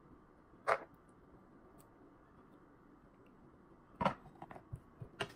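Thick cream sauce poured from a pan over lasagna layers in a glass baking dish. Over a quiet room hush there is one short sharp handling sound just under a second in, then a quick run of small knocks and clicks near the end as the pan and sauce are worked over the dish.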